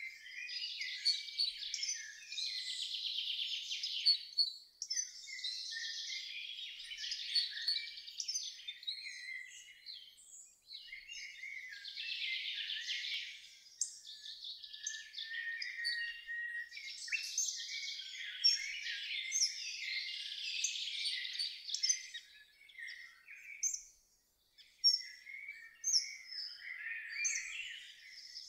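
Birds singing and chirping in busy phrases of two to three seconds with brief gaps between them, all high-pitched with no low sound beneath.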